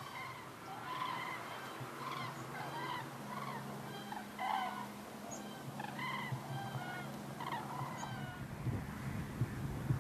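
A flock of common cranes calling in flight: many short, overlapping bugling calls, several a second, that thin out about eight seconds in.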